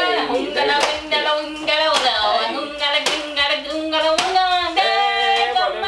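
A voice singing held, sliding notes, with sharp claps or slaps keeping time about once a second.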